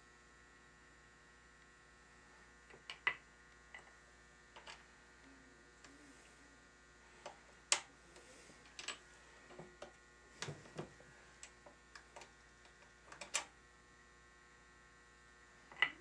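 Single-stage reloading press crimping .223 rounds in a Lee factory crimp die: scattered sharp metallic clicks and clinks as brass cartridges are set in the shell holder and the ram is worked. A steady electrical hum runs underneath.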